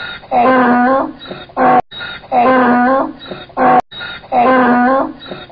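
Donkey braying: three loud hee-haw calls, each about a second long, with quieter in-breath notes between them.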